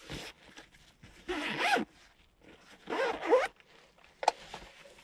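Zipper of a soft pistol case being pulled open in two long strokes, about a second and a half apart, followed by a short click near the end.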